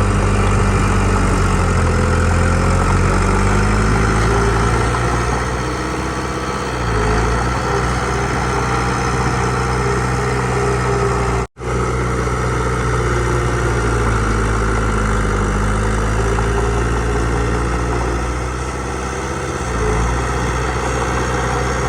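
Heavy diesel engine of earthmoving machinery running steadily, its note dipping and picking up again a couple of times. The sound cuts out for an instant about halfway through.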